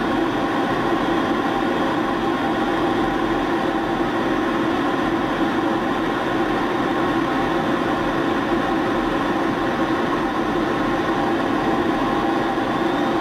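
Steady in-flight cockpit noise of an F-16 Fighting Falcon, heard from inside the canopy: an even drone with a few constant tones in it.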